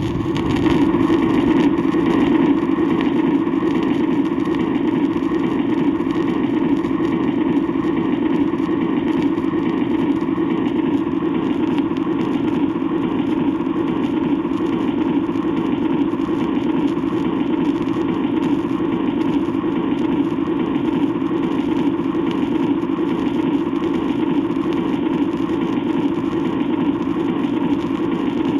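Train running steadily without a break, played from an old 78rpm sound-effects record with surface noise.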